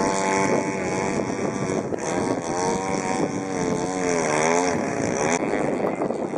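Mintor twin-cylinder engine of a radio-controlled Extra aerobatic model plane running in flight. Its pitch holds steady at first, then wavers up and down as the plane manoeuvres.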